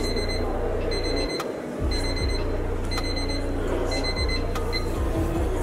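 A high electronic beep repeating about once a second, each beep short, over a steady low hum that drops out briefly about a second and a half in.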